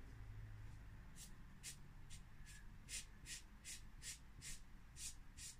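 Faint, even rubbing strokes of a small paint-loaded poly foam pad worked back and forth over the textured brick surface of a model building, about two to three strokes a second, starting about a second in.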